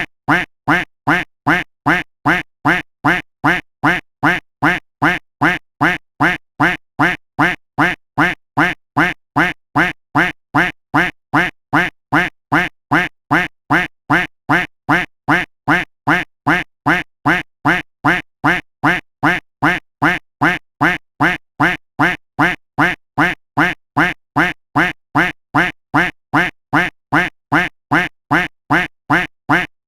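A duck-quack sound effect looped without a break: the same single quack repeats at an even pace, just under two a second, every call identical.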